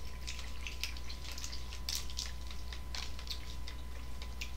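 Steady low electrical hum with scattered small clicks and crackles on top.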